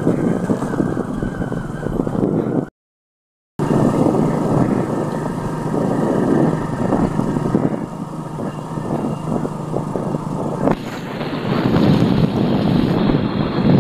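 A motorcycle being ridden: its small engine running under a steady rush of wind on the microphone. The sound cuts out completely for about a second around three seconds in, and near the end the rush grows louder and brighter.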